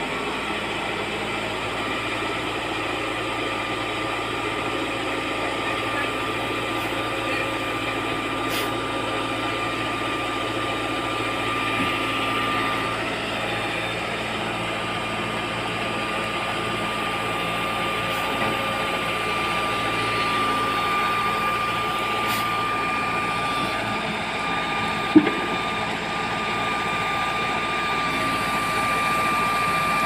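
Lovol backhoe loader's diesel engine running steadily while its backhoe arm lowers the bucket, with a thin steady high tone over the engine. A single sharp click about 25 seconds in.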